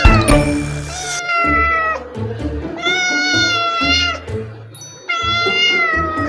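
Three long, drawn-out cat meows, each about a second and slightly falling in pitch, over background music with a pulsing low bass beat. A short hiss-like burst comes near the start.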